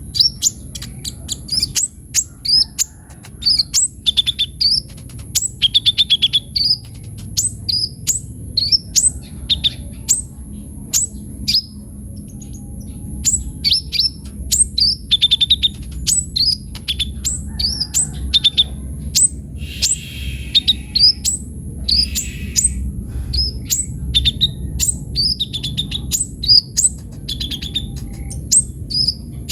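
Kolibri ninja, the olive-backed sunbird, singing vigorously: a fast, unbroken run of high, sharp chirps, each a quick falling sweep, mixed with short buzzy trills. A faint steady high-pitched whine and a low rumble sit underneath.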